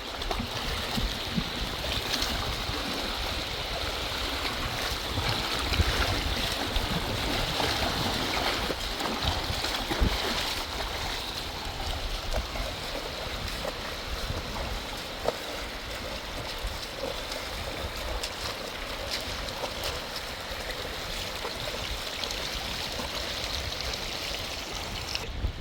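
Swollen, fast-flowing river rushing steadily, with a couple of sharp knocks about six and ten seconds in.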